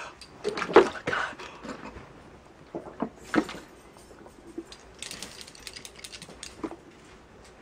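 A few short, sharp breaths and gasps from someone reeling from the burn of a hot habanero pepper, then a run of small clicks and crackles from a plastic water bottle being handled.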